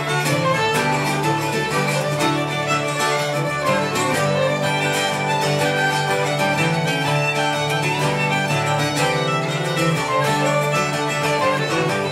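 Irish traditional jig played live on uilleann pipes, fiddle, bouzouki and guitar, with a steady low drone underneath the melody.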